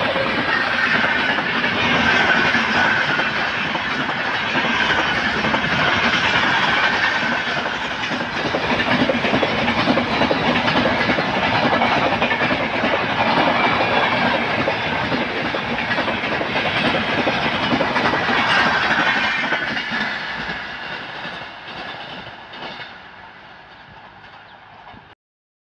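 Indian Railways passenger coaches running past at speed: a steady rushing roar of wheels on rail with the clickety-clack of the wheels over the rail joints. After about 20 seconds it fades away as the last coach recedes, then cuts off.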